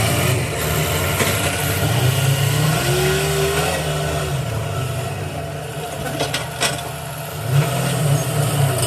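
Heavy diesel engine running under load, its revs rising and easing, with a whining tone that climbs and falls about three seconds in. A few sharp knocks come near the end.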